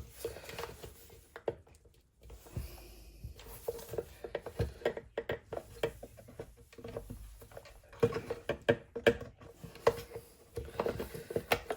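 Irregular clicks, taps and rubbing of a plastic radio casing and its parts being handled and pried apart by hand, with a quick flurry of clicks about two thirds of the way through.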